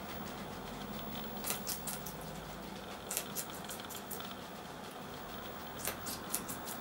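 Guinea pigs chewing raw red bell pepper: irregular crisp, wet crunching clicks that come in small clusters over a steady hiss.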